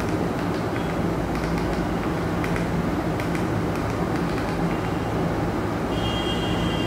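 Steady low background rumble with a hum, overlaid with faint scattered clicks, and a brief high-pitched tone near the end.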